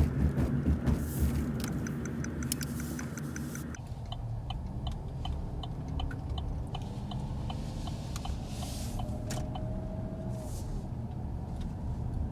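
Car cabin noise: the engine and tyres rumbling at low speed, with an even ticking of the turn signal running a few clicks a second. About a third of the way in, the hiss in the upper range cuts off suddenly.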